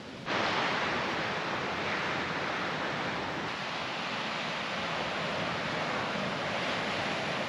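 Steady rush of ocean surf, starting suddenly a moment in and holding even throughout.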